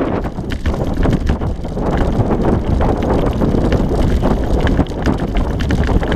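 Wind buffeting the microphone over the steady rumble and crunch of a four-dog sled-dog team and its musher travelling fast along a trail, with many small clicks and crunches from the ground.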